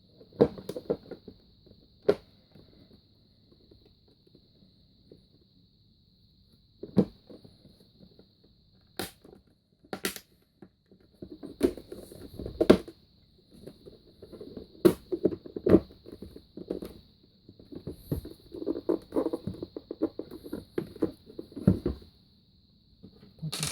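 Plastic cover and housing of a Black & Decker drip coffee maker being handled and fitted back on: scattered sharp clicks and knocks, with bursts of rattling and scraping through the second half, over a faint steady high hiss.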